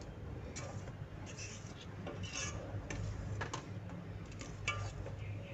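Steel spoon stirring thick rice pudding in a stainless steel pot, giving irregular light clicks and short scrapes against the pot, over a low steady hum.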